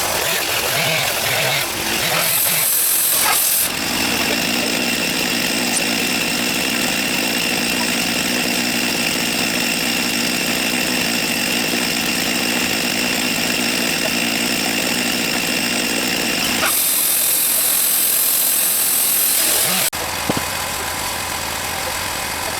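Wood-Mizer portable band sawmill running with a steady mechanical drone. Two stretches of loud hiss sound over it, one briefly about two seconds in and a longer one from about seventeen seconds that cuts off sharply near twenty seconds.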